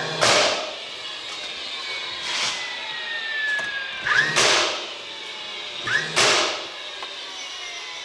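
Pneumatic nail gun driving nails into a wooden beehive frame, firing four times about two seconds apart, each shot a sharp blast of hissing air.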